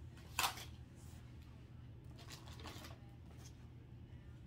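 Small plastic cosmetic packaging being handled by hand: one sharp click about half a second in, then a few faint rustles and light taps, over a low steady room hum.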